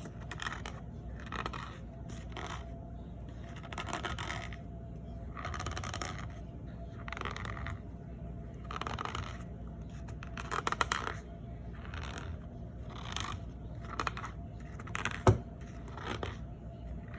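Cornstarch powder squeaking and crunching as it is worked, in a series of short squeaks about one a second. About three quarters through there is one sharp click, the loudest sound.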